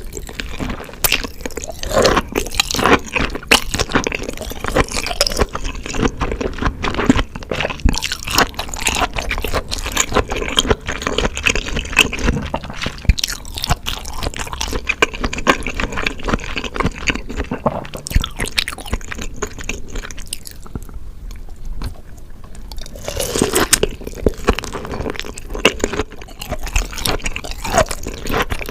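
Close-miked wet chewing and biting of raw scallop sashimi, with soft squishy smacks and irregular clicks of the mouth.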